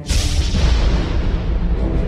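A cinematic boom hit: a sudden heavy impact with a deep rumble and a hiss that fades away over about a second and a half, over dark trailer music.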